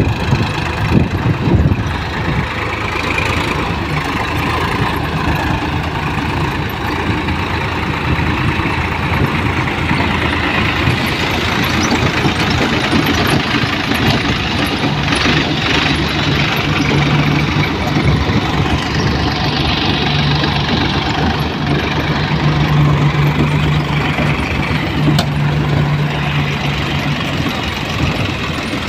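Tractor diesel engine running steadily under load, driving a trailed elevator implement whose conveyor lifts soil and straw into a trailer. A steady low hum stands out from about halfway through.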